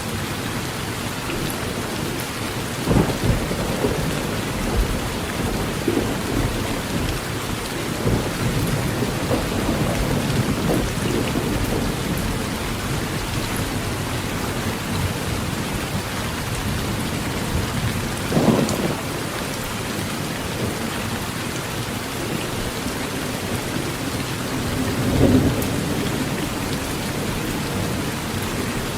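Steady heavy rain pattering on a metal tin roof, with several low thunder rumbles rolling through, the loudest about 3, 18 and 25 seconds in.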